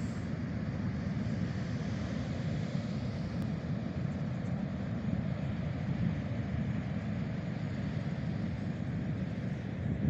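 Distant ocean surf: a steady, even rumble of waves breaking far out.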